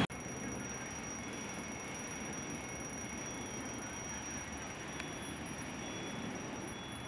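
Steady fire-scene background noise with a thin, steady high-pitched whine running through it and a single faint click about five seconds in.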